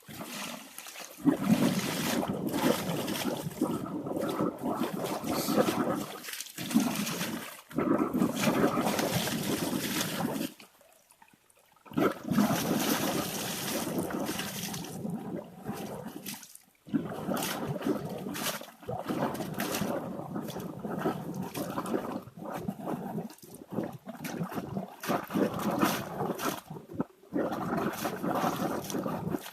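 Water gushing and splashing in irregular stretches, broken by several brief sudden stops.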